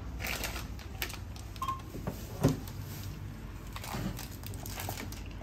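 Supermarket checkout: scattered clicks and knocks of groceries and packaging being handled, with a single short barcode-scanner beep about a second and a half in as an item is rung up.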